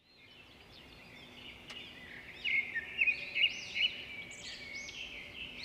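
Several birds chirping and twittering in quick, overlapping calls, fading in from silence at the start and loudest in the middle.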